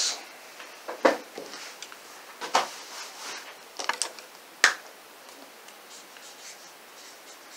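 A few sharp clicks and taps as a felt-tip marker is picked up and handled at a desk. Near the end comes the faint scratch of the marker writing on notebook paper.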